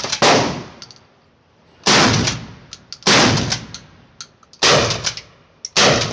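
Five 12-gauge shotgun shots from a Smith & Wesson M&P12 bullpup pump-action, fired with full-power 2¾-inch loads about one to one and a half seconds apart, each with a short echoing tail. Short clicks in between as the pump is racked; the gun is cycling without a hitch.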